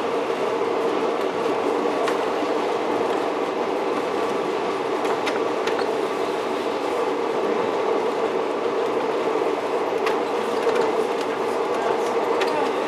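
A 'Tin Hare' rail motor running steadily along the track, heard from on board: an even rumble of engine and wheels with a few short, sharp clicks scattered through it.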